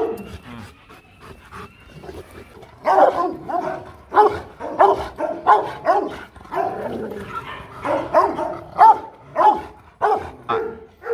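Young Rottweiler barking in a steady run, about two barks a second, starting about three seconds in.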